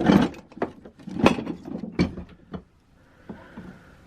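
Hand tools being handled: a run of clicks and clunks, the loudest near the start, about a second in and about two seconds in.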